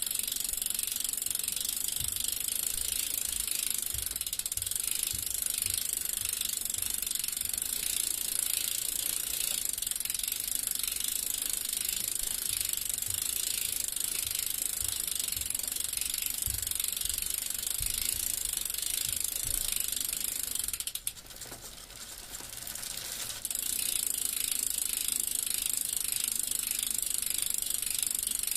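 Bicycle freewheel ticking fast and steadily as the wheel coasts, a rapid ratchet clicking. The clicking drops away for about two seconds near the end, then picks up again.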